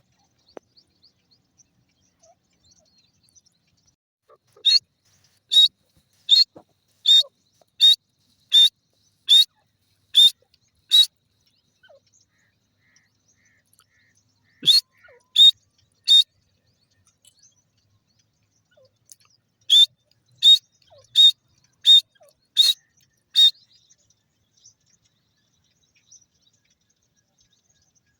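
Grey francolin calling: a run of about nine loud, short high notes evenly spaced under a second apart, then a burst of three, then another run of about six.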